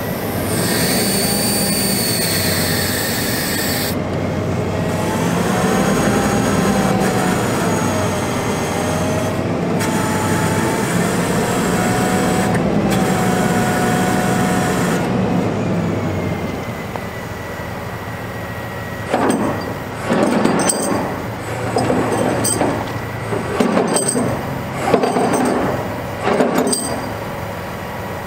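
Hydraulic system of an Altec DC47TR digger derrick working as its boom is swung and positioned. A steady drone with a thin high whine runs throughout, and for the first half it is overlaid by wavering, gliding whines. In the last ten seconds or so comes a series of short, loud bursts of noise.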